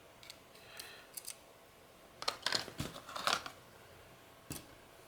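Small plastic camera parts clicking and tapping as they are handled and fitted together: a few light clicks, a quick cluster of clicks about two to three and a half seconds in, and one more click near the end.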